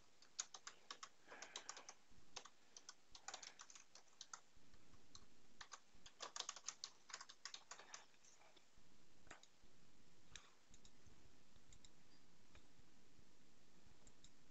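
Faint computer keyboard typing: quick runs of keystrokes for most of the first half, then a few isolated clicks.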